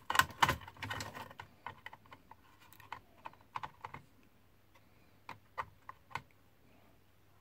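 Small plastic and metal clicks and taps as a laptop drive is handled and pressed onto its power and data connector inside the opened laptop. The clicks come quickly in the first couple of seconds, then a few scattered ones follow.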